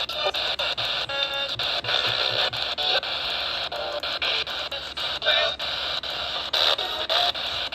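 Radio receiver hissing with static on a weak or empty frequency, broken by frequent short crackles and dropouts, with faint scraps of broadcast audio showing through the noise.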